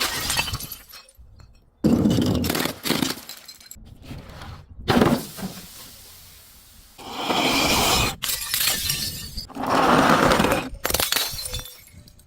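Glass bottles breaking: a series of crashes and crunching shatters, several separate breaks with sudden onsets.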